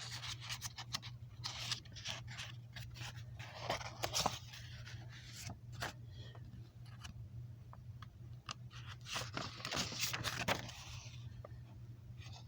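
Irregular light clicks and scraping, rustling noises, with two louder bouts of scraping about four and ten seconds in, over a low steady hum.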